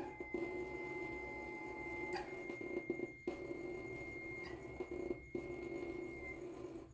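Water tap making a weird noise: a low buzzing hum with a fast rattle, topped by a thin steady whistle. A second, lower whistle tone drops out about two seconds in, and the sound stops near the end.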